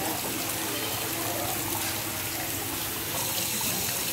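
Water pouring steadily from an inlet pipe into a shallow fish-rearing tank, splashing on the surface.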